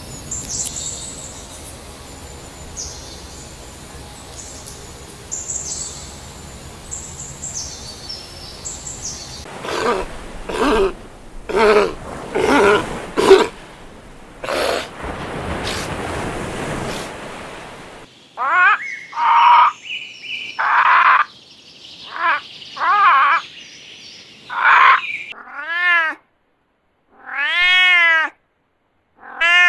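A sequence of animal calls: high, thin chirping for the first third, then a run of short, harsh cries, and in the last few seconds a domestic cat meowing repeatedly, each meow about a second long, rising and falling in pitch.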